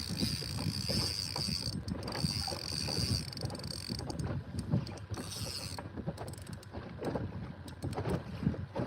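Fishing reel and rod being worked while playing a hooked smoothhound: a run of irregular mechanical clicks and knocks, with a high hiss during the first few seconds.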